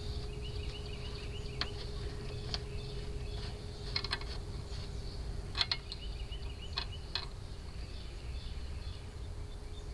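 Insects chirping steadily over a low outdoor hum, with a few scattered light clicks and taps from refrigerant hose fittings being connected to a recovery tank.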